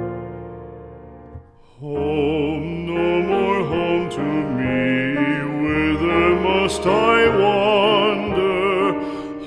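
Background music: a sustained piano chord fades away, and about two seconds in a singer with a wide vibrato comes in over an accompaniment.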